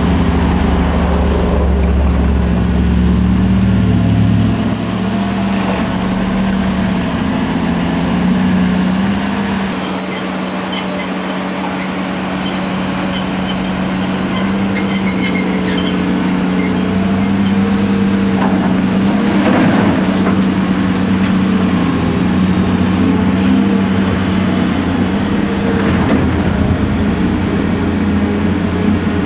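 Heavy diesel earthmoving machines working: the steady engine drone of a Caterpillar hydraulic excavator and Bell articulated dump trucks. Faint ticking runs for a few seconds about ten seconds in, and short louder surges come near twenty and twenty-six seconds.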